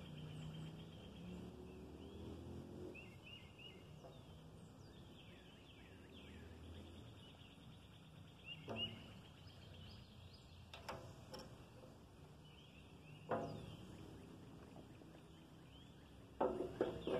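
Quiet outdoor background with faint bird chirps and a few light knocks and taps. The loudest knock comes about 13 seconds in, and a cluster of them near the end.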